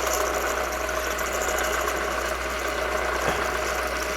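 Milling machine spindle running steadily while a 15/64-inch drill bit cuts a hole through hardened 4140 steel, a little under the 1/4-inch finished size.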